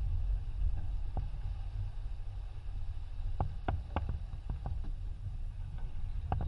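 Wind buffeting the microphone of an onboard camera on a sailing yacht under way, a steady low rumble. A quick run of short clicks comes about halfway through.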